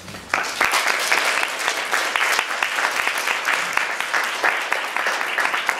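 Audience applauding, breaking out suddenly just after the start and going on steadily as a dense patter of claps.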